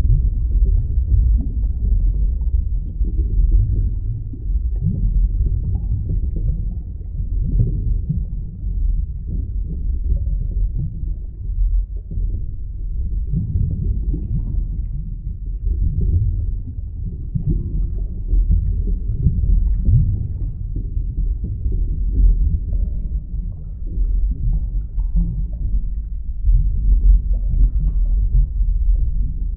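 Underwater ambience: a steady, muffled low rumble of moving water that swells and dips unevenly.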